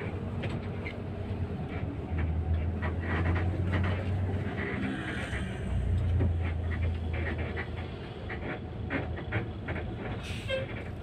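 Cabin noise inside a moving intercity coach: a low engine drone that swells twice, under scattered rattles and clicks from the bus's fittings.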